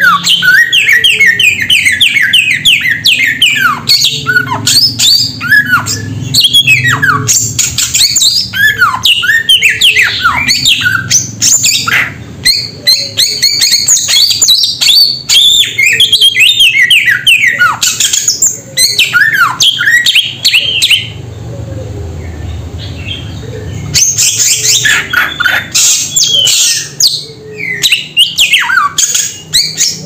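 Samyong songbird singing in long, rapid chattering runs of quick, falling whistled notes, with a short lull about two-thirds of the way through before the song picks up again.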